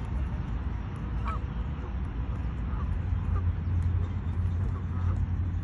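Geese giving short honking calls about once a second over a steady low rumble.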